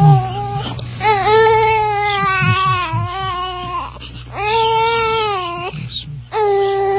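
Infant crying: a baby wailing in long, repeated high-pitched cries, the longest about three seconds, with short breaks for breath between them.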